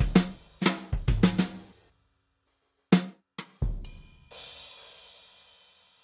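A programmed drum pattern playing back: a quick run of kick and snare hits for about two seconds, a short silence, then a snare hit, a deep kick and a cymbal that rings out and fades away.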